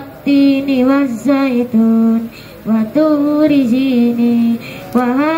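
Qur'an recitation (tilawah) chanted melodically by one voice, long held and ornamented notes in phrases with short breaths between them.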